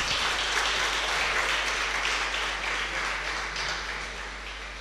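Audience applauding, a steady patter of many hands that dies away over the last second or so.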